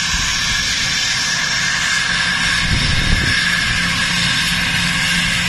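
Bombardier Global Express business jet taxiing, its two rear-mounted Rolls-Royce BR710 turbofans running at taxi power: a steady rush of jet noise with a high, steady whistling whine over a low hum.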